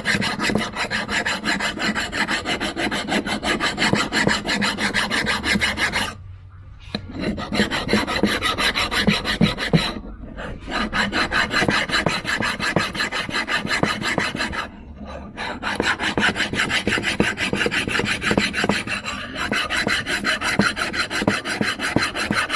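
Metal file rasping back and forth across the base flange of a Holley 94 carburetor in fast, steady strokes, taking down high spots to make the mounting surface flat. It stops briefly three times, about 6, 10 and 15 seconds in.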